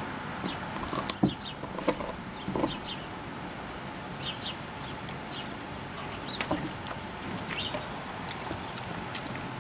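Siberian husky gnawing and licking a raw cow marrow bone, with a few sharp clicks of teeth on bone, most of them in the first three seconds. Birds chirp throughout.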